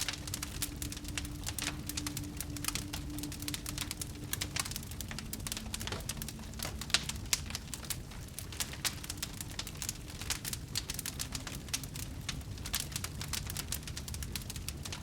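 Fire crackling: dense, irregular pops and snaps over a steady low rumble.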